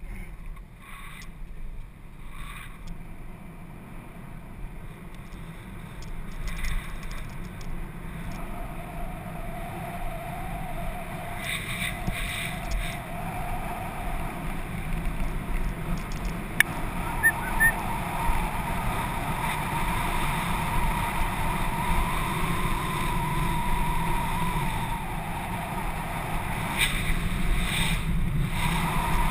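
Wind rush on a GoPro mounted on a downhill mountain bike rolling down a forest road, over a low rumble from the tyres on the road surface. It grows louder as speed builds, with a hum that steps up in pitch partway through and a few sharp clicks near the middle.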